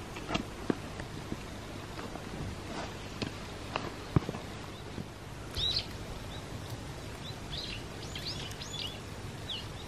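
Outdoor ambience with small birds chirping in short high calls through the second half, after a few light clicks and knocks in the first half.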